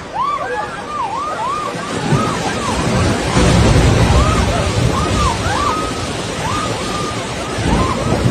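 Floodwater rushing loudly, swelling about two seconds in, with many short high-pitched calls rising and falling over it.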